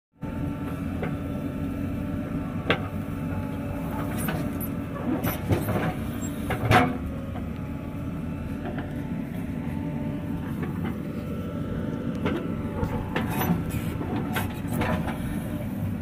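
JCB 3DX backhoe loader's diesel engine running steadily under load as the machine digs and loads soil, with a faint whine over the low rumble. Several short knocks sound through it, the loudest nearly seven seconds in.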